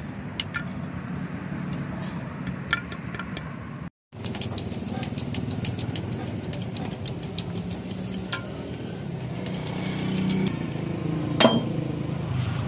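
A steady low engine-like hum runs under light metallic clicks from handling metal parts. A brief dropout about four seconds in, and a single sharp metal clank near the end.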